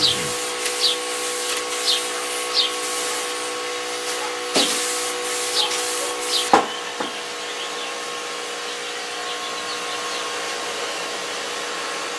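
Compressed-air paint spray gun hissing as red paint goes onto a car's engine bay, the hiss stopping sharply with a knock about halfway through, over a steady machine hum.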